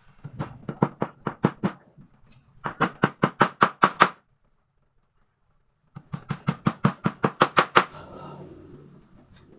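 A hammer striking wood in quick runs of blows, about five a second: three bursts of some eight to ten hits each, with a dead-silent gap in the middle.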